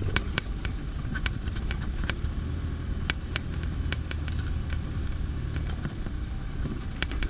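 Car driving over a rough, bumpy dirt road: a steady low rumble of engine and tyres, with scattered sharp clicks and knocks from the jolting.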